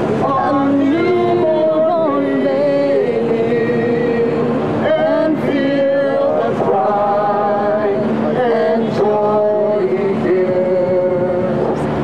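Slow singing with long held notes that step from pitch to pitch, over steady street traffic noise.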